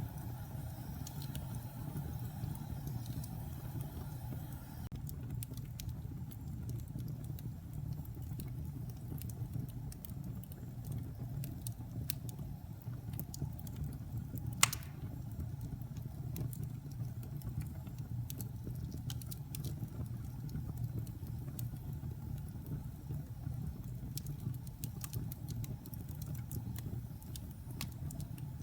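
Log fire burning in a fireplace: a steady low rumble with scattered light crackles and one louder pop about halfway through.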